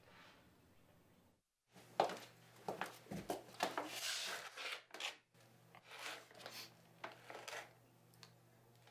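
Irregular rustling and scraping noises in quick, uneven bursts for about six seconds, starting just after a moment of dead silence.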